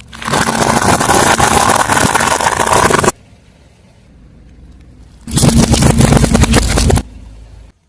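Car tyre rolling over and crushing crunchy objects: two loud stretches of dense crackling and crunching, the first about three seconds long and the second under two, each cutting off abruptly.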